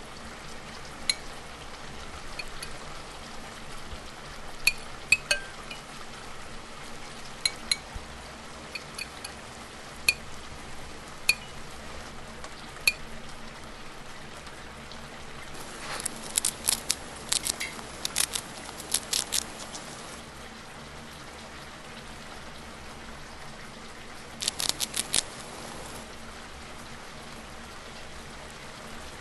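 Steady hiss of rain with scattered light metallic clinks of cookware, then two short runs of rapid clinking, the first about halfway through and the second a few seconds later.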